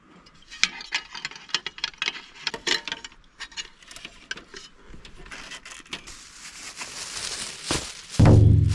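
A run of light clicks and taps, as of small objects being handled, followed by a rustling hiss that grows louder. Near the end, loud background music with a low bass starts.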